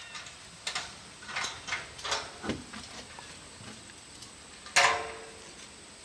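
Goats moving along a wire fence with a few light rustles and steps, then one short, loud goat bleat about five seconds in.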